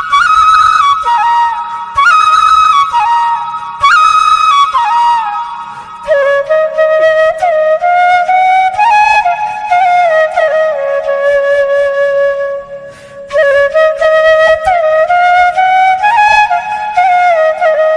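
Instrumental background music: a single melody line with gliding, ornamented notes, which drops to a lower register about six seconds in.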